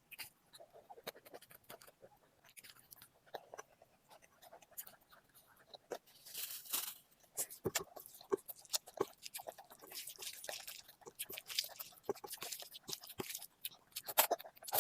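A person chewing and biting food, with many short crunches and clicks and a couple of longer hissy stretches in the middle.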